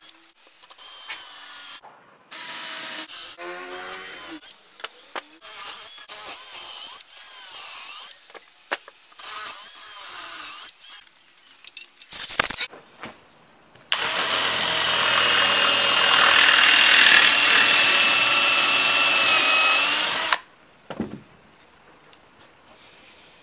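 Cordless drill boring into the particleboard edge of a melamine shelf. First come short bursts of drilling, the motor's whine rising and falling with the trigger, then one long steady run of about six seconds that stops suddenly, followed by a single knock.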